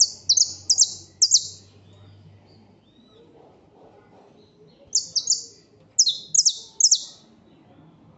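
Songbird singing two quick phrases of loud, high, sharp notes, each note sweeping downward: one phrase at the start and another about five seconds in.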